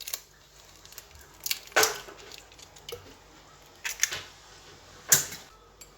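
Eggs being cracked against the rim of an electric mixer's bowl: a few sharp taps a second or more apart.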